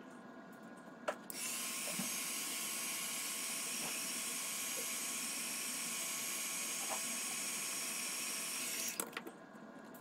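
Mini hot air gun clicked on about a second in, its fan blowing with a steady hiss and a thin whine for about eight seconds, then switched off with a few clicks near the end. It is heating the tablet's screen adhesive to soften it before the screen is lifted.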